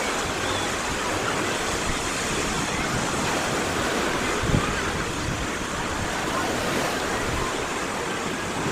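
Azov Sea surf washing steadily onto the beach, with one brief low thump about halfway through.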